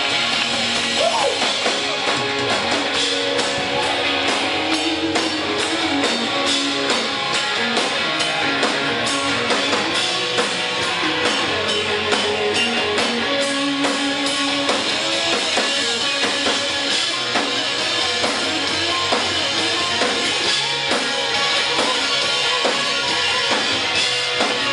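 Live rock band playing: electric guitars over a steady drum-kit beat, heard from the crowd.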